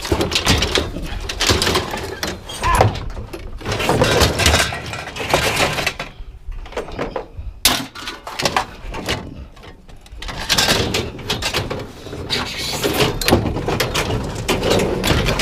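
Scrap metal clanking and crashing as pieces are thrown and dragged off a loaded truck, a dense run of irregular knocks with a short lull about six seconds in and one sharp crack soon after.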